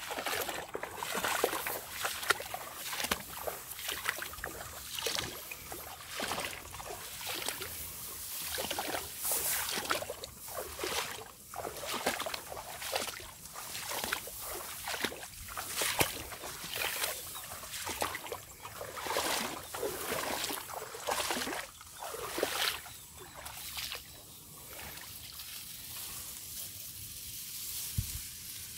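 Rice plants swishing and shallow water sloshing as someone wades through a flooded rice paddy, in irregular strokes about once a second, quieter for the last few seconds.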